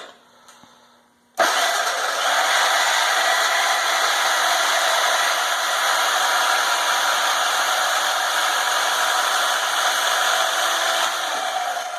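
Bauer 10-amp portable band saw switching on suddenly about a second and a half in and running steadily for about ten seconds as it cuts through steel angle iron, then dying away near the end.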